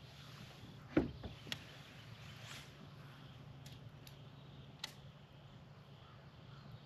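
A knock on the kayak's hull about a second in, followed by a few light clicks as fishing gear is handled in the boat.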